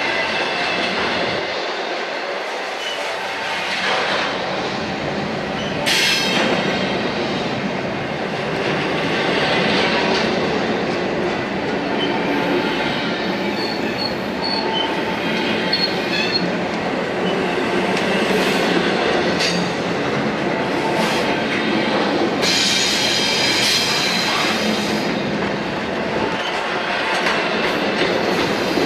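Double-stack intermodal container train rolling past close by: the steady rolling noise of the freight cars' wheels on the rails, with a few short stretches of high-pitched wheel squeal, about six seconds in and again late on.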